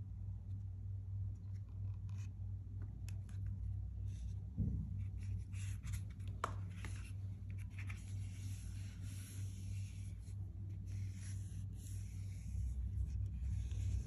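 Hands handling and rubbing a pair of oiled-leather Birkenstock Madrid Big Buckle sandals with cork footbeds: scattered light taps and a scratchy, rubbing rustle, over a steady low hum.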